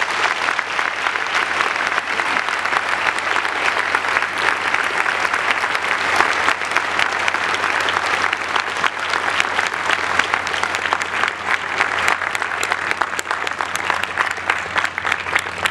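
Audience applauding steadily, a dense patter of many hands clapping that thins slightly toward the end.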